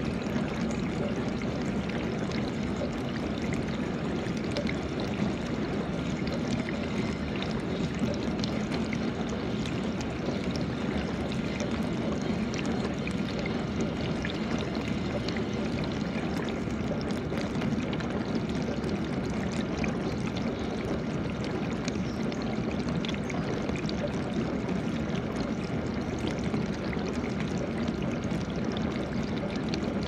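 GE dishwasher running, its water spraying and splashing steadily inside the tub over a low, steady pump hum.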